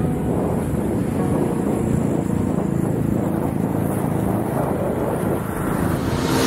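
Inline skate wheels rolling on asphalt, with wind on the microphone: a steady, low rumbling noise.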